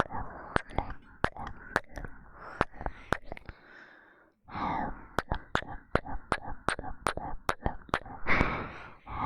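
Rapid bursts of close-up kiss sounds into a 3Dio binaural microphone: sharp lip smacks at about three a second over breathy noise, with a brief pause about four seconds in.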